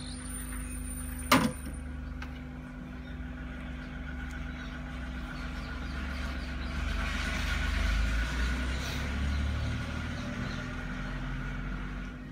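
Hot air blower running with a steady hum and low rush of air, used to heat the phone's back panel and soften its adhesive. One sharp click about a second and a half in.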